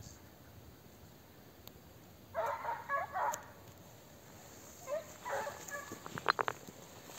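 Hunting dogs barking in the distance, in two bouts of several barks a couple of seconds apart, the second ending in a quick run of sharp yelps.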